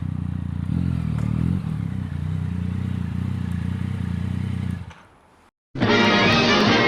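Yamaha MT-09's three-cylinder engine with an Akrapovič exhaust, running steadily at low revs with a short blip of the throttle about a second in. The sound cuts off about five seconds in, and after a brief silence music starts.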